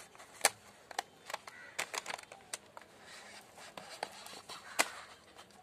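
Scissors snipping at the strong rubber band tied round the neck of a plastic fish bag, making a string of sharp clicks; the loudest come about half a second in and again near the end.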